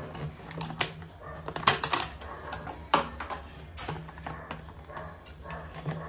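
Cardboard toy box and hard plastic RC car and remote being handled: an irregular run of sharp clicks, taps and cardboard knocks, the loudest about two and three seconds in.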